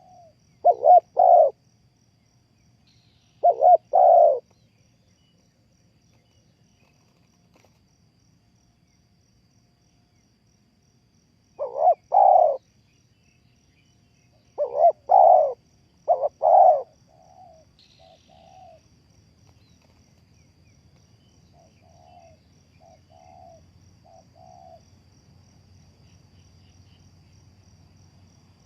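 Spotted doves cooing: four loud groups of two or three low, rolling coos, with a quiet gap of several seconds in the middle. Fainter, shorter coos at the same pitch follow in the second half.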